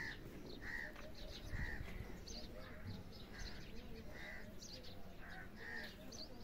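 A crow cawing over and over, about once a second, with faint chirps of small birds among the calls.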